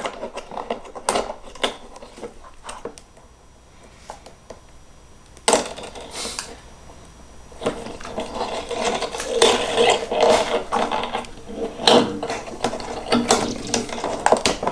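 Clicks, rattling and scraping as a steel dulcimer string is handled, looped through a screw eye and pulled through its ball or loop end. Scattered clicks at first, then a busier stretch of scraping and rattling from about halfway on.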